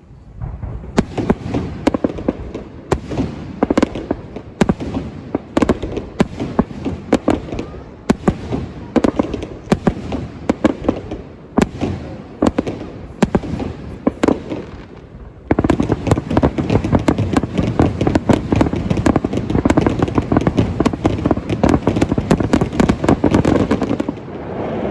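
Fireworks bursting overhead in quick succession, many sharp bangs and crackles overlapping. A little past halfway the bursts thicken into a dense, unbroken barrage, which cuts off suddenly about a second before the end.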